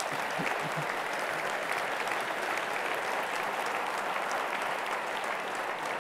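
Large audience applauding, a steady wash of many hands clapping.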